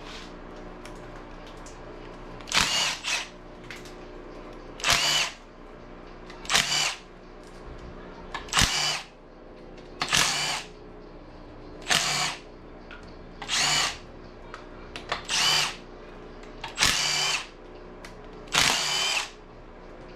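A power tool, such as a cordless ratchet or drill, run in ten short bursts about two seconds apart, each a brief whine, as fasteners are spun out during an engine teardown.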